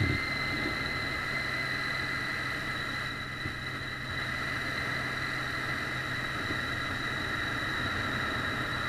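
Triumph Street Triple's inline three-cylinder engine running at a steady cruise under the rider, with wind noise rushing over the microphone.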